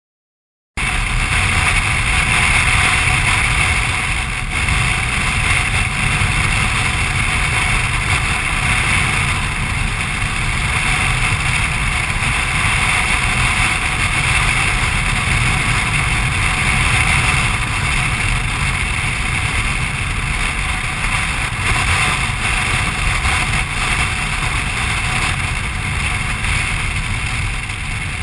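BMW R1200RT boxer-twin motorcycle cruising at a steady speed, heard through a bike-mounted camera as a steady rush of wind and road noise over the engine. It starts suddenly just under a second in.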